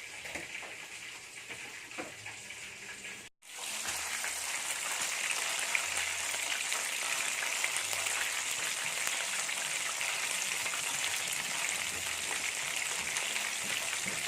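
Breaded chicken pieces deep-frying in hot oil, a steady sizzle. It cuts out for a moment about three seconds in and comes back louder.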